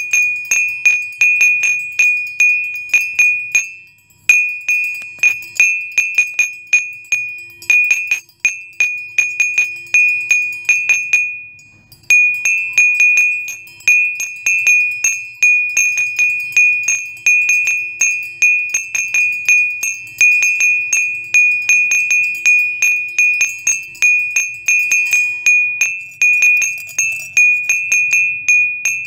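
A high chime or small bell rung over and over, about three to four strikes a second, each strike ringing briefly on the same note. There are a few short breaks in the first half.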